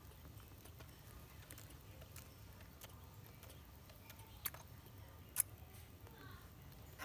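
Faint scattered clicks and smacks from a baby monkey sucking at a milk bottle's nipple, with two sharper clicks about four and a half and five and a half seconds in, over a low steady hum.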